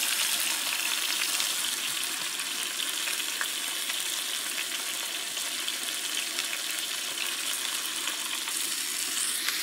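Chicken breasts searing in a cast iron skillet: a steady sizzle with many small crackles of spitting fat.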